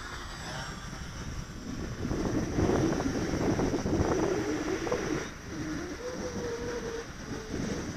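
Electric motors and propellers of a Durafly Cessna 310 radio-controlled twin-engine model plane, louder for a few seconds in the middle as it flies by. After that it holds a steady whine that drops in pitch near the end.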